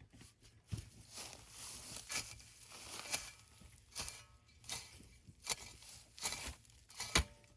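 Footsteps, about one every three-quarters of a second, each a short scuff.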